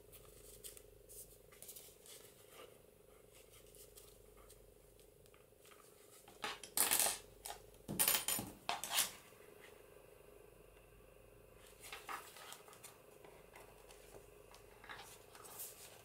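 Needle and thread being worked through a paper signature and cover spine in hand bookbinding: light clicks and paper rustles, with a cluster of louder rasps of thread drawn through about seven to nine seconds in.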